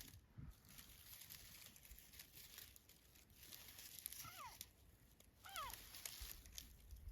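Two faint seagull calls, each a short cry falling in pitch, about four and five and a half seconds in, over a soft rustling hiss.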